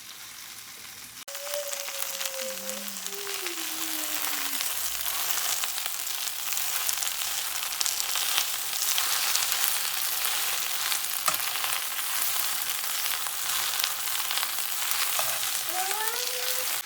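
Fresh spinach sizzling in a frying pan of melted butter with onion and garlic as it is stir-fried. The sizzle jumps sharply louder about a second in, when the spinach goes into the hot pan, and stays loud and crackling.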